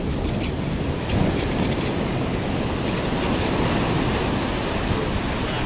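Ocean surf breaking and washing up the sand, a steady rush that swells about a second in, with wind buffeting the microphone.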